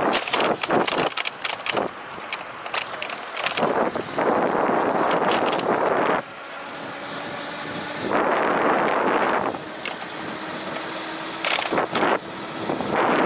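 Wind buffeting the microphone of a camera on a moving bicycle, rising and falling in gusts, with a run of sharp clicks and rattles in the first few seconds and a thin steady high tone from about halfway through.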